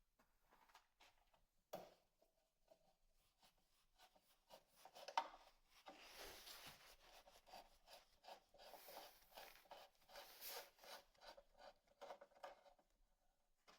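Faint rubbing and scraping with scattered light clicks, which grow denser from about four seconds in. There is one sharper knock about five seconds in.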